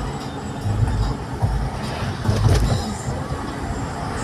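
Low, steady rumble of engine and road noise heard from inside a moving vehicle's cabin.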